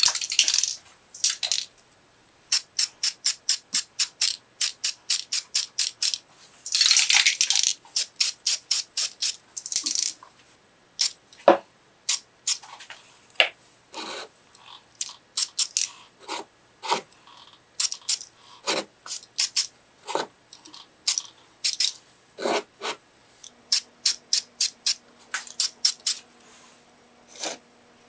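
Spray-paint can being shaken, its mixing ball rattling in quick runs of sharp clicks, with short hisses of spraying, the longest about seven seconds in.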